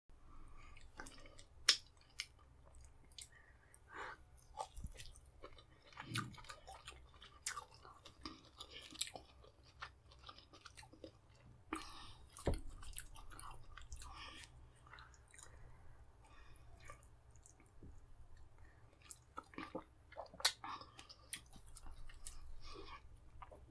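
Close-miked eating sounds of a man chewing fufu with vegetable soup: irregular wet mouth clicks and smacks, a few sharper ones standing out, over a faint low hum.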